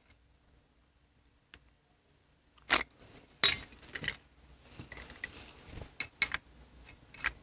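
Small metal parts clicking and clinking as a Linkert carburetor's aluminium float bowl and a small ruler are handled to check the float height. There is one light tick, then from about three seconds in a quick run of sharp clicks and taps.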